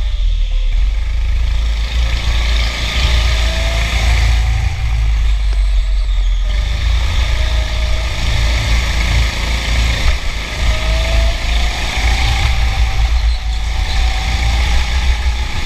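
Onboard sound of a go-kart being driven on a track: a heavy low rumble of the running kart and its vibration, with a thin motor whine that rises and falls several times as the kart speeds up and slows.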